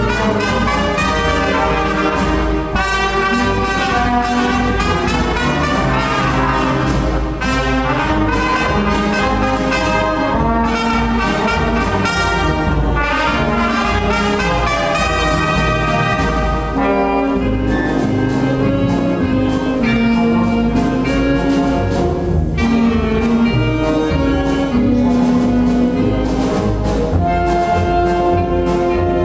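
Band music led by brass instruments, playing continuously as a melody over sustained chords.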